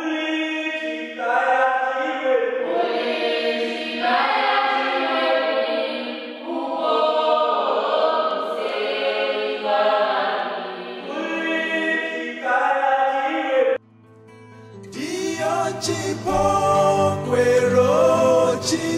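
Choir singing in sustained harmony. It cuts off suddenly about fourteen seconds in, and another piece of music with a low bass line begins.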